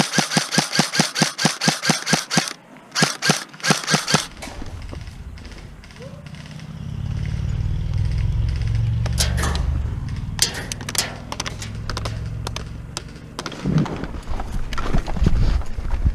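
Airsoft gun firing a long rapid burst of sharp clicks, then two short bursts a few seconds in. This gives way to a low rumble on the microphone, with scattered single shots later on.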